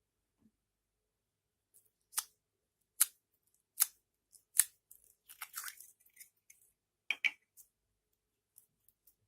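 Slime being pressed and stretched by hand, giving four sharp pops evenly spaced, then a run of soft crackles and two more pops as trapped air bursts.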